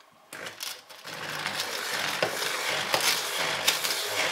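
Hand blender with a multifunction attachment starting up in a plastic beaker, mixing butter pieces with granulated sugar. A few knocks come first, then the motor runs steadily from about a second in, with the sugar churning.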